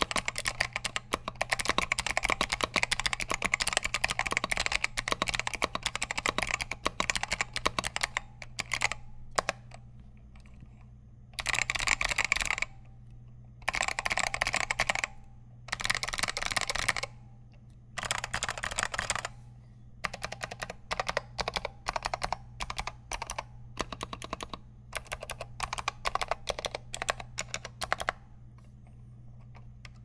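Typing on an Alps64 custom keyboard with modded Alps White switches and AEKII (Apple Extended Keyboard II) keycaps. Fast, continuous keystroke clicks run for about the first eight seconds, then sparser keystrokes broken by several short dense runs of about a second each.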